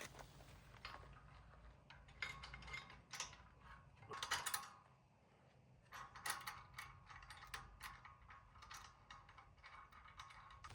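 Ratchet wrench clicking in short runs of rapid clicks, pausing briefly about halfway through before clicking again.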